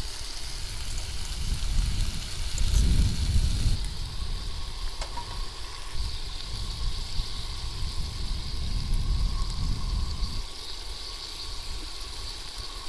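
Bacon frying in a pan on a two-burner camp stove: a steady sizzle, over an uneven low rumble that swells and fades.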